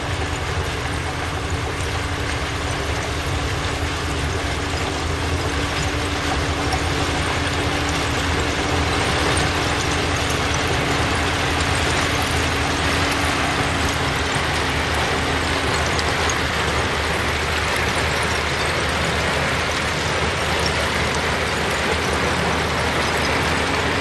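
A bulldozer's diesel engine running steadily under a continuous dense mechanical rattle, with a strong low engine hum beneath.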